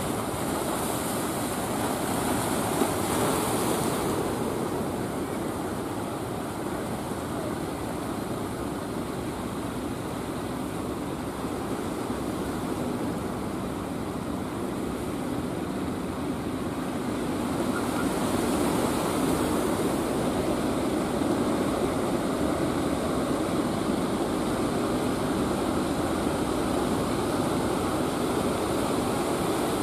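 Steady rush of surf with wind on the microphone, growing a little louder a bit past halfway.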